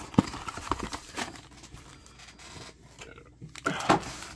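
Cardboard trading-card blaster box being torn open by hand and its foil card packs handled: tearing, rustling and crinkling, with a sharp snap just after the start.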